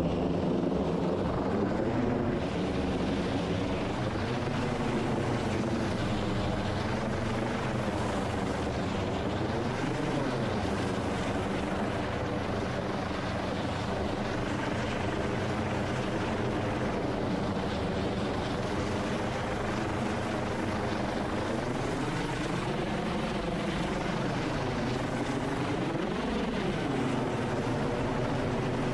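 MH-65 Dolphin helicopter running steadily: the hum of its twin turboshaft engines and rotors with dense noise over it, the pitch wavering briefly twice.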